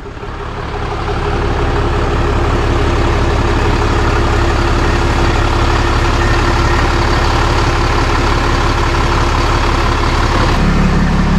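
Tow truck engine running steadily, its note changing about ten and a half seconds in.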